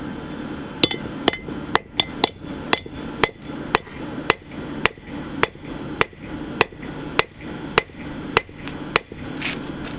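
Hand hammer striking a red-hot railroad spike held in tongs on an anvil, flattening its tip: a steady run of sharp metal-on-metal blows, about two a second, starting about a second in and stopping near the end.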